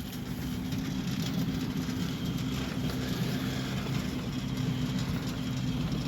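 Centurion D5 Evo Smart sliding gate motor running steadily, driving the steel sliding gate along its steel rack, with an even low hum.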